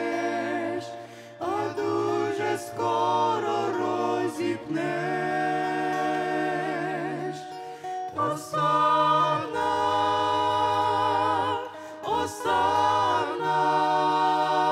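Small mixed vocal ensemble of men and women singing a Ukrainian hymn in close harmony, in phrases of long held notes with vibrato and short breaks between them.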